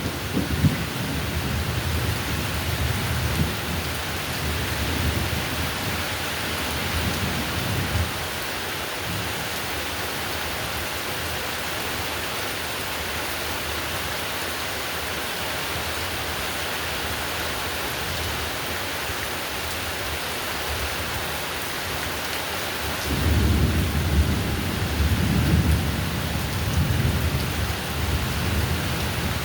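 Heavy rain falling steadily with thunder. A deep rumble dies away about eight seconds in, and another roll of thunder comes in suddenly near the end and rumbles on.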